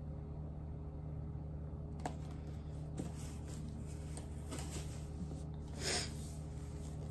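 Handling of a boxed iPad and a cardboard shipping box: a few light clicks and taps, and one louder, brief rustle of packaging about six seconds in, over a steady low background hum.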